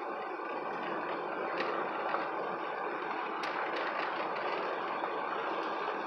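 Car driving on a gravel road, heard from inside the cabin: steady tyre and road noise, with a few sharp ticks about one and a half and three and a half seconds in.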